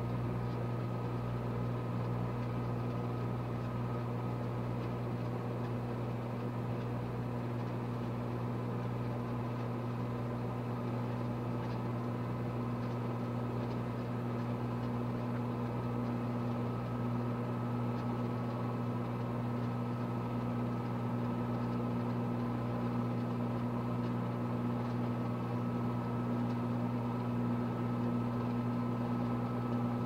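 Microwave oven running: a steady low hum with a fainter, higher steady tone above it.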